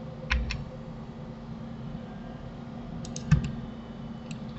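Computer keyboard keys and mouse buttons clicking as Blender shortcuts are used: two clicks near the start, a quick run of clicks a little past three seconds, and one more near the end, over a faint steady hum.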